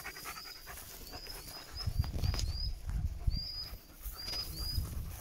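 A dog close by, panting briefly at the start, then rustling and snuffling with low rumbling and knocks from about two seconds in. Short high chirps repeat every fraction of a second throughout, like a small bird calling.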